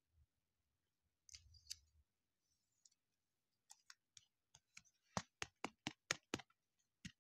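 Hands handling a trading card in a clear plastic holder: a faint rustle, then a quick run of sharp clicks and taps in the second half, about five a second at their loudest.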